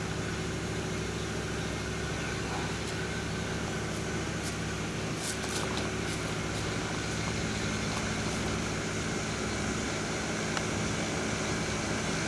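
Steady mechanical hum of a running machine, with a low drone that holds its pitch and a few faint ticks about five seconds in.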